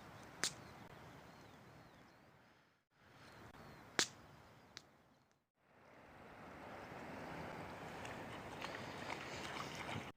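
Faint, even outdoor noise broken by three short, sharp knocks: one about half a second in, then two close together about four seconds in. The noise grows louder over the last few seconds.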